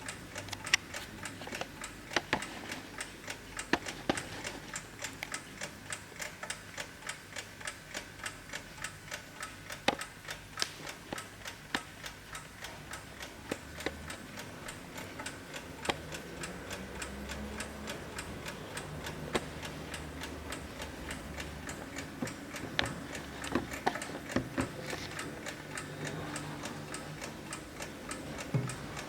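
Antique German Pfeilkreuz brass carriage alarm clock ticking: an even, fairly quick tick of about three beats a second, some ticks louder than others.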